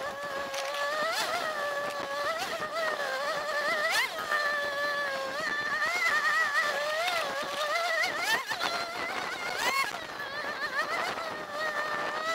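Ski-Doo Summit X 800 two-stroke snowmobile engine running under way, its pitch rising and falling with the throttle, with a few quick sharp revs partway through.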